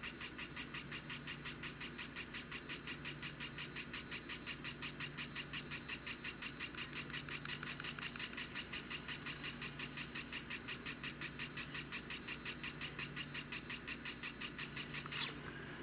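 3D printing pen feeding clear PLA filament as it extrudes, its drive motor ticking rapidly and evenly, about five times a second, over a faint steady hum. It stops about half a second before the end.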